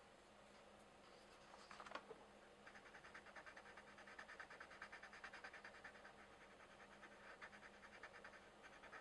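Coloured pencil scratching on paper, faint: a single short stroke near two seconds, then rapid, even back-and-forth shading strokes from about two and a half seconds in.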